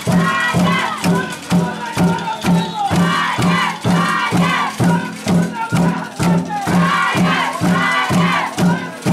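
Spectators shouting and chanting over a steady drum beat of about two beats a second, with rattles shaken along with it.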